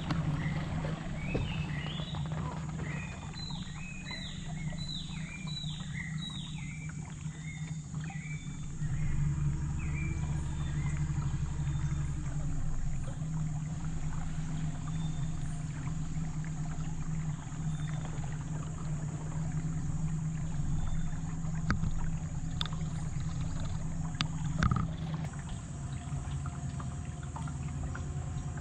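Small river boat's outboard motor running slowly with a steady low hum, while a bird calls a series of repeated falling whistled notes through the first ten seconds or so. A single knock about 25 seconds in.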